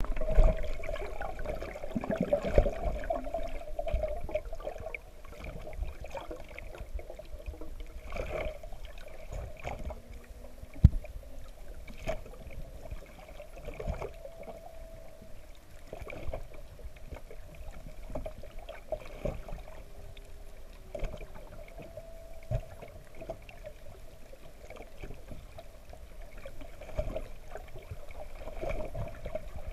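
Underwater sound picked up through an action camera's waterproof housing: a steady hum with a fainter high tone, bubble and water noise, and scattered knocks and clicks, the sharpest one about eleven seconds in.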